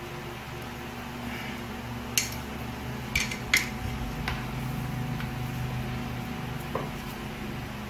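Screwdriver clinking against metal while the ignition pickup coil beside a scooter flywheel is set and tightened: a handful of sharp metallic clicks in the middle, over a steady low hum.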